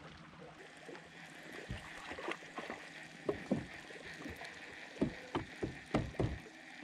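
Water lapping against the hull of a small fishing boat, with scattered soft knocks, most of them in the second half.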